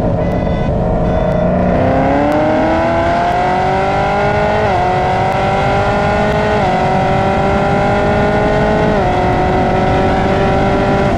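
Chevrolet Camaro ZL1's supercharged 6.2-litre LT4 V8 pulling through the gears. Its exhaust note climbs in pitch, then drops at each of three upshifts.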